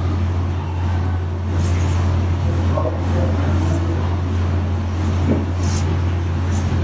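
Steady low mechanical hum from a running motor, with a few brief rustling scrapes as a hand works filling out of a plastic tub.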